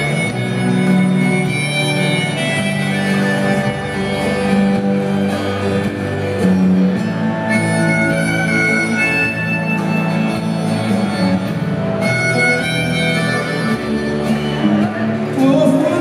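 Live band playing an instrumental passage of the song: strummed acoustic guitar, electric guitar, bass and drums under a sustained harmonica melody line, with singing coming in at the very end.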